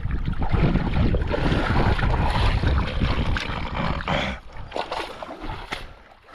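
Wind buffeting the microphone: a loud rumble that eases after about four seconds, followed by a few sharp clicks.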